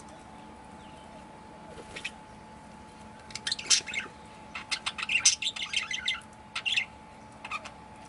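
Budgerigars chirping and chattering in quick, high bursts. The chirps start about three seconds in, are busiest around the middle, and a few stray ones follow near the end.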